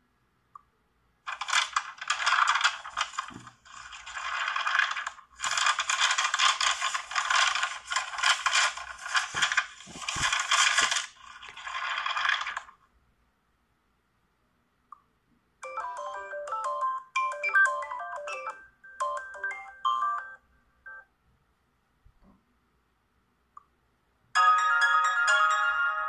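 Sharp Aquos wish2 (SH-51C) smartphone playing its preset ringtones one after another through its speaker. The first is a dense many-note tone lasting about eleven seconds. After a short pause comes a melody of short separate notes for about five seconds, and a third tune of sustained notes starts near the end.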